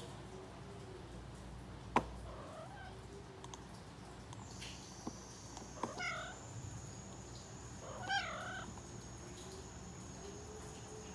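Calico cat meowing twice, two short meows about two seconds apart. There is a single sharp click about two seconds in.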